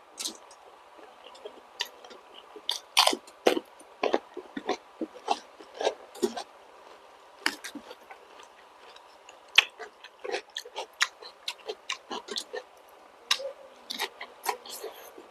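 Close-miked chewing and biting with irregular crisp crunches and wet mouth clicks, from eating balut (boiled fertilized duck eggs) with vegetables.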